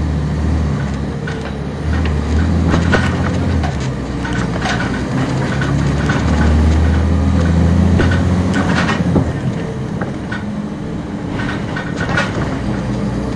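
Inside a 1999 NovaBus RTS transit bus under way: the Cummins ISC six-cylinder diesel drones low, swelling and easing several times. Short rattles and clicks from the bus body run through it.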